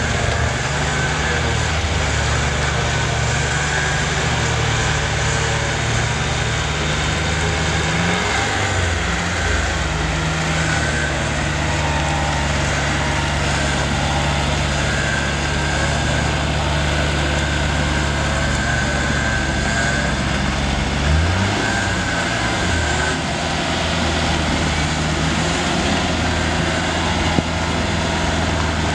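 Land Rover Defender 90's Tdi turbodiesel engine running steadily off-road, with the revs rising briefly twice, about eight seconds in and again around twenty-one seconds. A single short click comes near the end.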